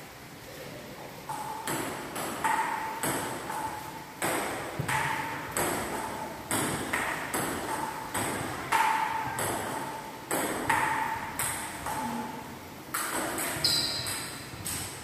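Table tennis rally: the ball clicking back and forth off the paddles and the table, sharp short pocks at about two a second, starting about a second in and running until near the end.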